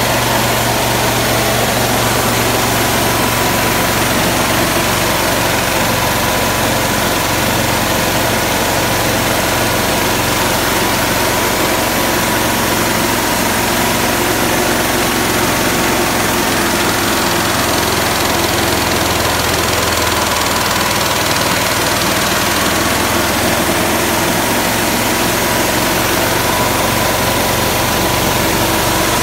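Coffee huller driven by a Honda GX160 single-cylinder four-stroke petrol engine, running at a steady speed with a constant mechanical din and low hum.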